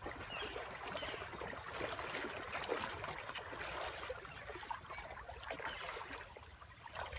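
Shallow river water sloshing and splashing unevenly as a person wades through it and two small dogs paddle beside her on leads.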